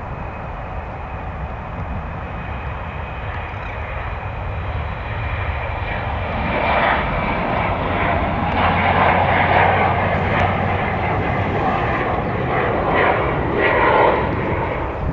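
Embraer E190's twin General Electric CF34-10E turbofans at takeoff power as the jet climbs out. A steady high whine sits over a rumble, and the engine noise swells about six seconds in and is loudest near the end.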